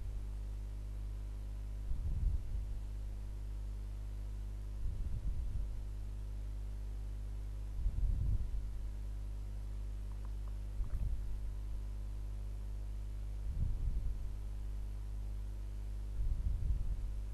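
Steady low electrical hum, with a soft low puff or rumble about every three seconds.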